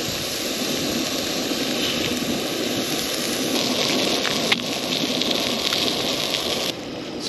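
Crappie fillets frying in hot vegetable oil, a steady dense sizzle and crackle that drops off suddenly near the end.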